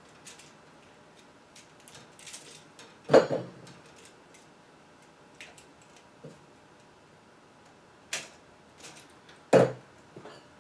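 Small clicks and handling noises of pliers and solid copper wire as the black wire is bent into a hook and fitted under an outlet's terminal screw, with two louder short knocks, about three seconds in and near the end.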